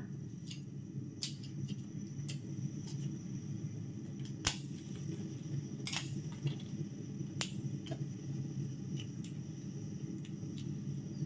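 Scattered small clicks, snips and rustles of hands unwrapping a disc of palm sugar and working scissors on its wrapping, the sharpest click about four and a half seconds in, over a steady low hum.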